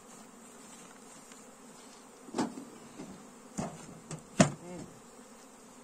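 Honeybees buzzing around an open beehive, with a few sharp knocks, the loudest about four and a half seconds in, as the hive's metal-covered lid is set back down on the wooden box.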